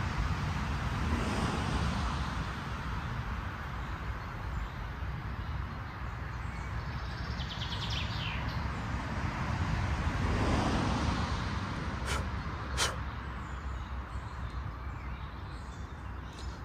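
Steady outdoor rumble of wind and distant road traffic, swelling about ten seconds in, with two short sharp clicks soon after.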